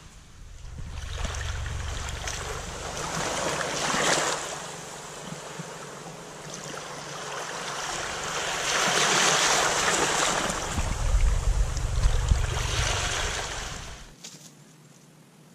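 Small waves washing up over a sandy shore, the surf swelling and falling back twice, with wind buffeting the microphone. The surf stops suddenly near the end.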